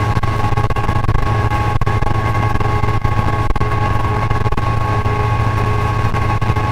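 Diesel freight locomotive running at speed, heard from inside its cab: a steady engine drone with a constant high tone over it, broken by irregular clicks and knocks from the wheels and cab.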